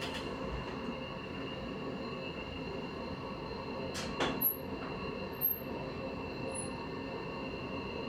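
Toshiba New Luminous rope-type traction elevator running, a steady hum of the car in motion with a faint steady high-pitched tone that the uploader thinks is an abnormal noise from the announcement unit. A sharp clunk about four seconds in, followed by a few short, very high chirps.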